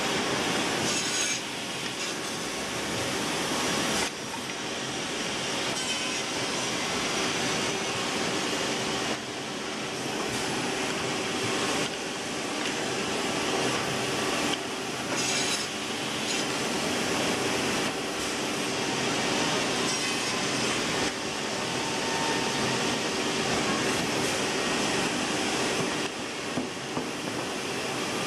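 Yow Cherng YC-TF2 single-sided cutting, boring and moulding machine running and cutting wood pieces, a steady noisy machining sound with a few held tones, its level stepping up and down every few seconds.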